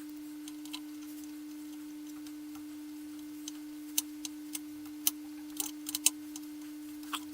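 A steady, unwavering pure tone like a test tone, with a few light clicks and taps in the middle and near the end.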